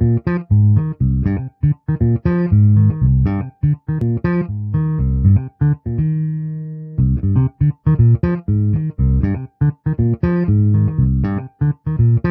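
Instrumental intro music: a quick, choppy run of short plucked notes over a strong bass line, pausing on one held note about halfway through before the run picks up again.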